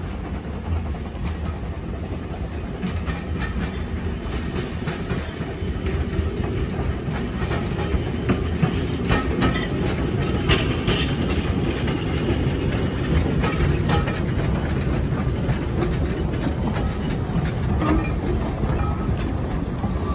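Narrow-gauge steam tank locomotive hauling coaches, approaching and running close past, growing gradually louder as it nears, with a run of sharp clicks and knocks from about eight to eleven seconds in.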